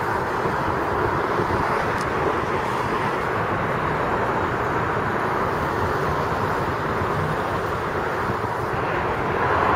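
Steady background noise of distant city traffic, an even wash with no separate events, swelling slightly near the end.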